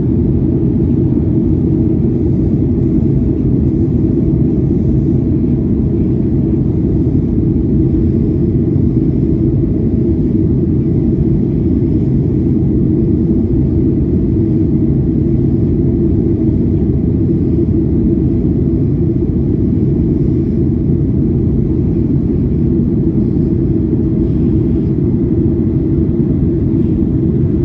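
Steady low rumble of a Boeing 737-800's CFM56-7B jet engines and rushing air, with a steady hum in it, unchanging throughout.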